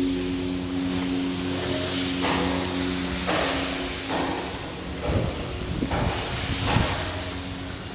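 Chiller unit running with a steady hum under a hiss, with several short surges of louder hissing.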